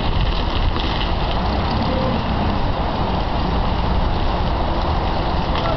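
Engine of a 20,000 lb Taylor Y-20-WOM forklift running steadily.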